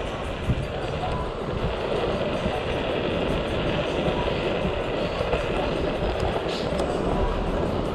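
Steady wind rush buffeting the microphone and running noise of a moving scooter, a continuous rumble and hiss with no breaks.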